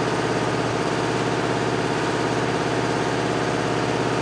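An engine running steadily at idle, an even drone with a fast regular pulse that does not change.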